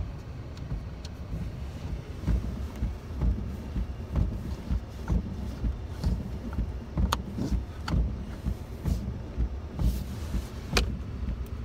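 Ford F-150 King Ranch pickup running, heard from inside the cab as an uneven, pulsing low rumble, with a few sharp clicks, the clearest about 7 and 11 seconds in.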